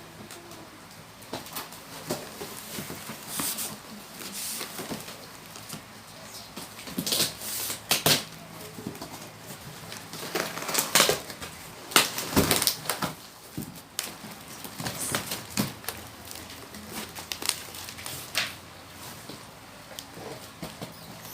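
Packaging wrapping being peeled and torn off by hand: irregular rustling and crackling with sharp tearing bursts, busiest in the middle stretch.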